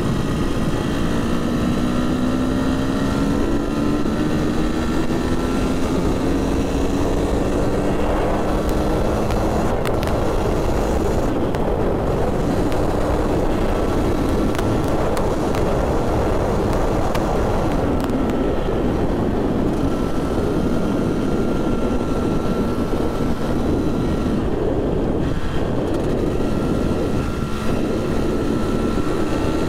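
Husqvarna two-stroke dirt bike engine pulling under load while being run in, its pitch rising over the first several seconds as the bike picks up speed, then holding steady. Heavy rushing wind noise runs alongside the engine.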